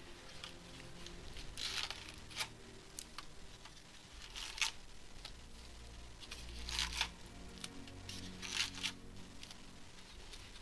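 Trading-card packaging being handled and torn: about five short tearing and crinkling rustles, with faint music underneath.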